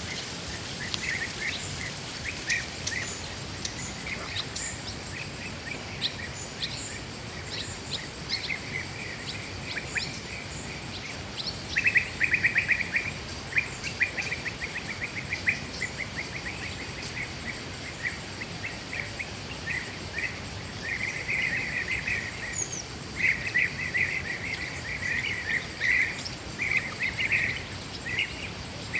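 Forest ambience: birds calling with bursts of quick, repeated chirps, louder in clusters about halfway through and again near the end, over a steady background hiss.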